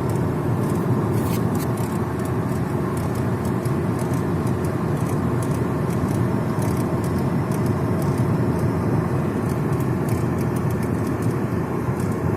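Kia Rio 4 on the move, with steady road and running noise and irregular light knocks and clicks throughout. The uploader takes the knocking for a foreign noise that apparently comes from the steering rack.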